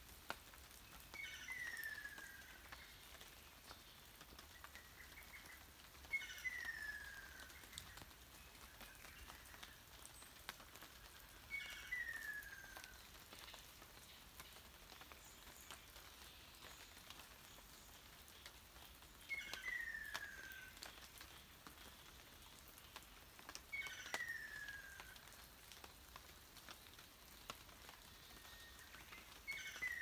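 Ruddy kingfisher calling: a falling call about a second and a half long, repeated six times at intervals of five to seven seconds. Light rain drips and ticks on the foliage between the calls.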